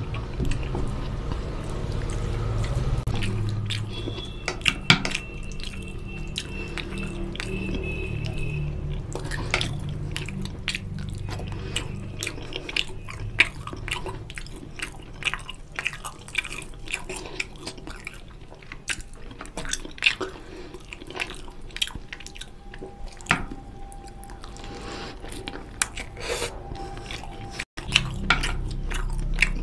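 Wet squishing and sticky clicks of bare fingers kneading rice into oily mutton curry on a plate, with close-up chewing and lip smacks.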